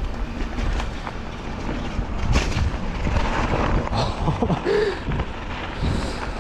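Mountain bike ridden over a rough trail: wind rumble on the microphone with rattles and knocks from the tyres and frame. A brief warbling tone comes in about three quarters of the way through.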